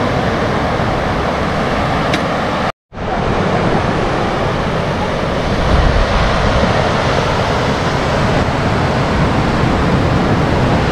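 Sea surf breaking and washing up a sandy beach, a steady rushing with some wind on the microphone. It cuts out for a moment about three seconds in, then carries on.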